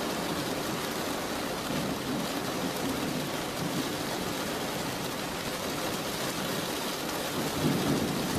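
Steady rain recording: an even hiss of rainfall, with a low rumble swelling briefly near the end.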